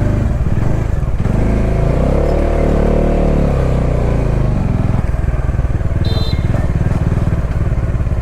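Motorcycle engine running steadily while under way, its note rising and falling once about two to three seconds in. A brief high beep sounds about six seconds in.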